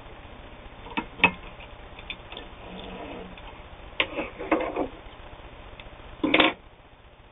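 A few sharp clicks and short handling sounds with the sewing machine stopped, as the stitched leather is handled at the machine; the loudest is a brief squeak-like sound near the end.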